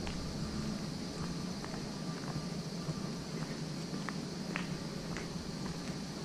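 Outdoor woodland ambience heard while walking on a paved path: a steady low rumble of wind on the microphone and footsteps, a steady high hiss, and scattered faint short chirps.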